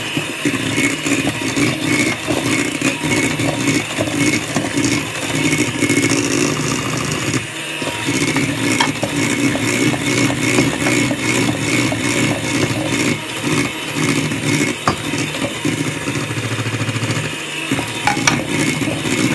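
Electric hand mixer running steadily, its beaters whirring through whipped egg whites and rattling and scraping against a stainless steel bowl as egg yolks are beaten in. The sound dips briefly about seven seconds in.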